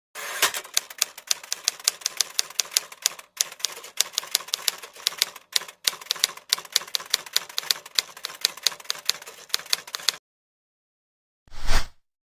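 Rapid typewriter keystrokes, about six a second with a couple of brief pauses, cutting off abruptly about ten seconds in. Near the end, a short, loud burst of noise.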